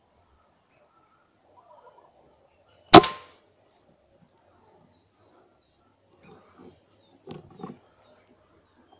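A single rifle shot about three seconds in: one sharp crack with a short fading tail. Small birds chirp faintly before and after it, and a few soft rustles come near the end.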